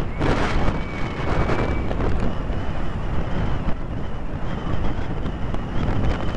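Jet engines of the Red Arrows' BAE Hawk trainers rumbling overhead with a faint, wavering high whine, mixed with strong wind buffeting the microphone.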